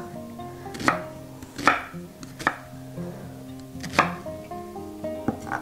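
Chef's knife chopping a peeled yellow onion into large chunks on a wooden cutting board: five separate knife strikes a second or so apart, over soft background music.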